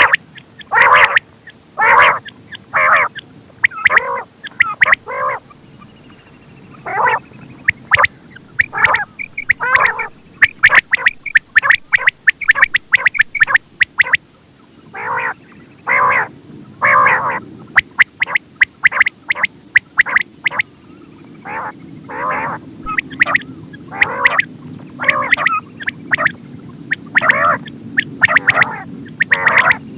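Quail (batair) calling over and over in short, sharp notes, sometimes singly and sometimes in quick runs of several, with a faint low hum beneath.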